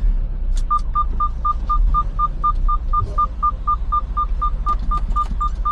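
Rapid electronic beeping, about four short beeps a second at one steady pitch, starting about half a second in, over the low steady rumble of the idling truck's diesel engine.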